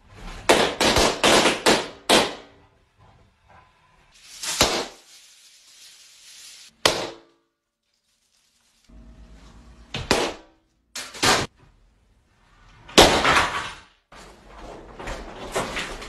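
Rubber balloons bursting in a series of sharp pops: a quick run of about six right at the start, then single pops and pairs, a bigger burst about thirteen seconds in, and a cluster of pops near the end.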